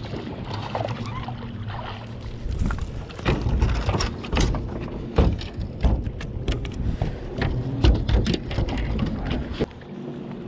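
A largemouth bass being landed and handled in a fishing boat: a run of irregular knocks, thumps and splashy clatters for several seconds, over a low steady hum that is heard alone at the start and end.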